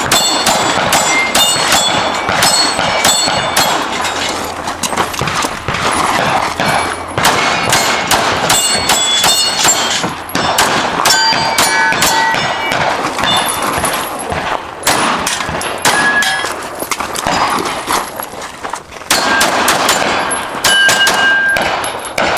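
Pistol fired in rapid strings of shots during a timed action-pistol course of fire, with steel targets ringing at several different pitches as they are hit. There are short pauses between strings, as the shooter moves between positions.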